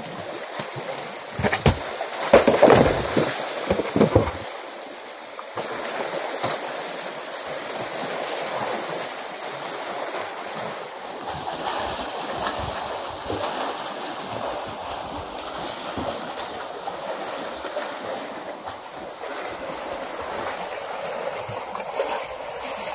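Small waves lapping and splashing against shoreline rocks, a steady wash of water, with a few louder rustles and knocks in the first few seconds.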